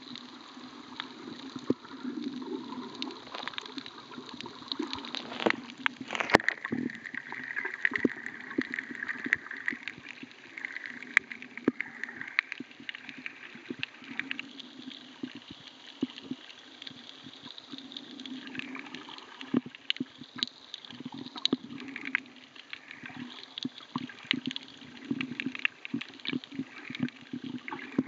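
Underwater sound picked up by a camera held below the surface: muffled sloshing and gurgling water with many sharp clicks and crackles scattered throughout.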